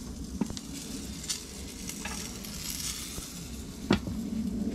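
Sausages and pork steak sizzling on a Weber Q gas grill, with a light click about half a second in and a sharper click near the end.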